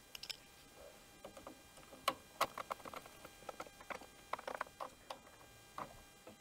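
Irregular light clicks and taps of plastic parts and a hand tool as the air filter and primer base is fitted and screwed onto a Briggs & Stratton Quantum engine, the loudest clicks about two seconds in.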